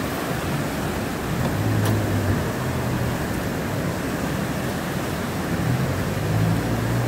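Steady low rumble of a boat's motor over the rush of fast river water, with wind on the microphone.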